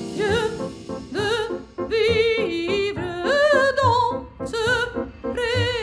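A woman singing short operatic phrases in a high voice with wide vibrato, the notes broken by brief pauses.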